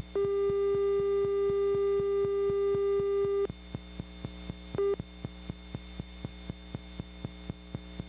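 A buzzy electronic tone is held for about three and a half seconds and cut off, then sounds again as a short blip about five seconds in. Under it run a steady electrical hum and regular clicks, about three or four a second.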